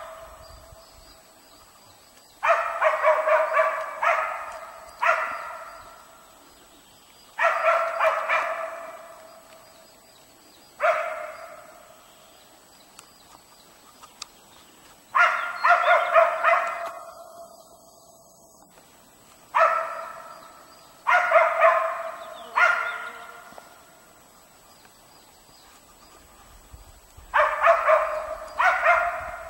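West Siberian laikas bay-barking at a moose they have found and are holding: bursts of several quick barks every few seconds, each burst fading out before the next.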